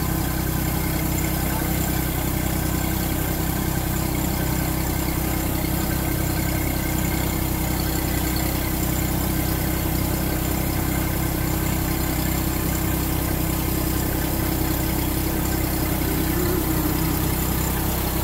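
Kubota B2741 compact tractor's diesel engine running steadily at constant speed, driving the PTO-powered fan and diaphragm pump of a Shaktiman Rakshak-400 air-blast sprayer; the fan's steady rush of air sits over the engine's drone while it sprays.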